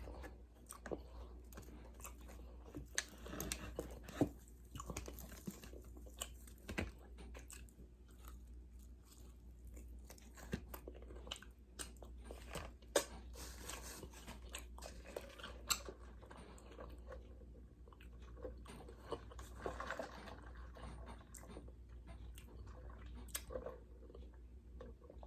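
A person chewing and biting close to the microphone, eating fried chicken tenders on a donut, with irregular crunches and clicks, over a steady low hum.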